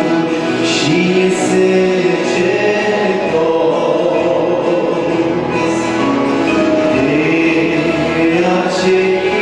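A congregation of women singing a Romanian hymn together, a many-voiced group sound with long held notes.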